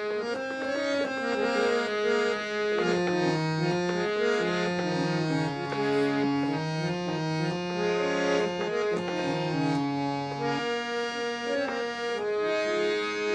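Harmonium playing an instrumental interlude in a ghazal: a stepping melody of held reed notes over sustained lower notes.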